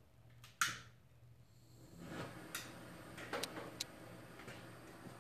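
A hand-held propane blowtorch being lit: a sharp click about half a second in, then the steady hiss of the burning gas from about two seconds in, with a few more clicks over it.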